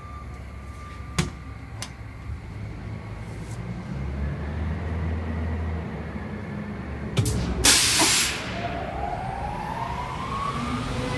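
Dust collector starting up: a loud burst of hissing air about eight seconds in, then its fan motor winding up with a rising whine over a steady machine hum. Sharp clicks from the control panel come a second or two in.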